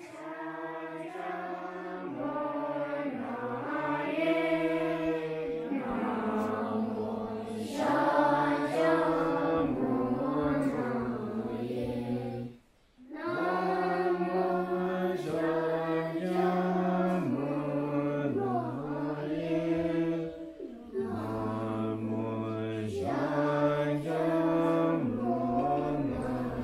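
Monks chanting together in unison: a slow melodic chant of long held notes that step up and down. It breaks off for a moment about halfway, then resumes.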